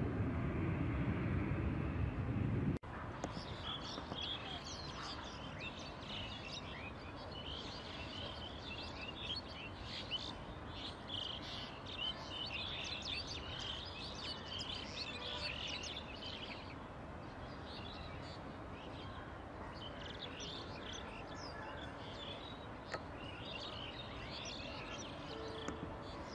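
A MiG-29 jet's engine noise overhead, cut off abruptly about three seconds in, gives way to many small birds chirping over faint steady background noise. The chirping thins out for a few seconds in the second half, then picks up again.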